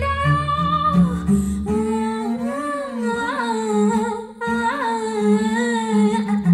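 A female voice singing a melodic line over a plucked double bass. This is the playback of a recording through a hi-fi loudspeaker, picked up by a microphone about 2 m away in the room.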